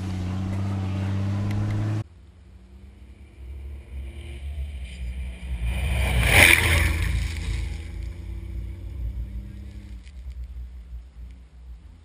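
A steady engine drone stops abruptly about two seconds in. Then an off-road rally truck drives over a low camera on a sandy track: its engine grows louder as it approaches, is loudest with a rush of noise as it passes over about six seconds in, and then fades away.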